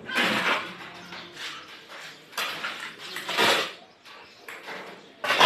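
Steel shovel blade scraping and rasping across a concrete floor as dry sand and cement are turned together for a dry-pack mix, in several separate strokes. The longest stroke is in the middle and a short, sharp one comes at the end.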